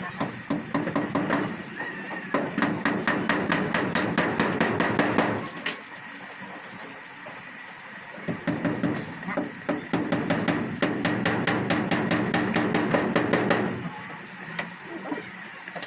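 Hammer striking as a wooden pigeon widowhood box is fastened in place. There are two long bouts of quick, even blows with a pause of a couple of seconds between them.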